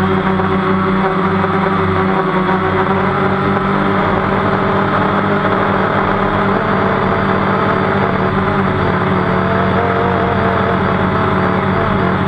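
DJI Phantom quadcopter's motors and propellers humming steadily in flight: a loud, even buzz whose pitch wavers slightly. It is heard close up through the camera on the drone.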